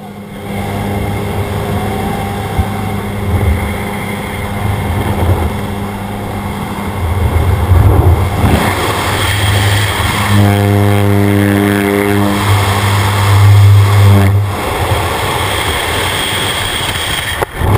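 Single-engine jump plane's engine and propeller droning with wind rushing in through the open door, the drone getting stronger and more tonal for a few seconds. Near the end it cuts away to the steady rush of freefall wind over a helmet-mounted camera.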